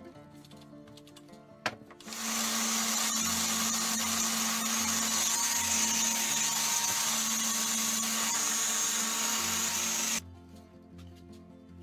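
Electric orbital sander fitted with a wool pad, buffing polish into a wood-and-resin surface. A sharp click comes just before it starts about two seconds in, then a steady whirring hiss with a low hum runs for about eight seconds and cuts off suddenly. Background music plays throughout.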